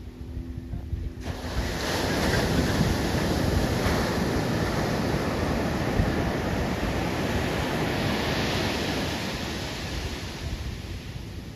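Steady rushing of wind on the microphone mixed with sea surf on the beach, coming in suddenly about a second in and easing off near the end.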